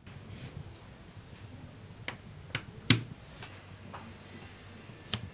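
Cardboard jigsaw puzzle pieces being picked up and set down on a wooden table: about six sharp, irregular clicks and taps, the loudest about three seconds in.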